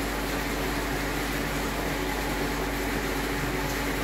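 Steady mechanical hum with a constant low tone, unchanging throughout.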